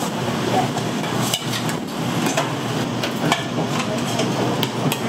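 Kitchen clatter: several sharp knocks at irregular intervals over a steady background din.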